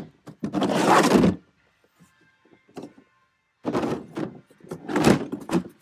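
Metal tools being handled in a toolbox drawer: a loud clattering scrape, a pause of about two seconds, then more rattling and knocking as tools are shifted into place.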